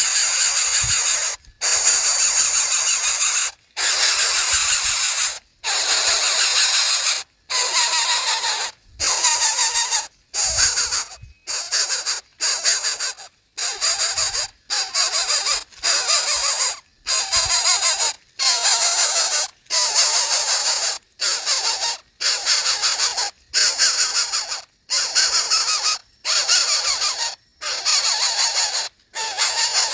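Harsh, hissing calls of a young bird, each about a second long, repeated in a steady series with short breaks between them.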